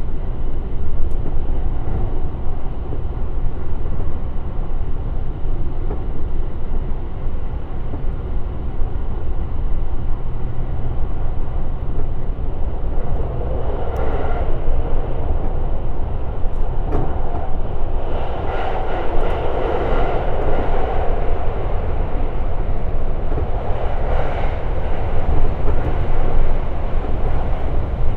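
Electric express train running at speed, heard from inside: a steady low rumble of wheels on rail, with louder mid-range running noise and faint steady tones about halfway through and again later on, and a few faint clicks.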